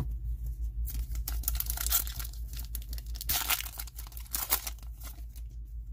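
Foil trading-card pack torn open by hand: a run of ragged tearing and wrapper crinkling starting about a second in and easing off near the end, over a low steady hum.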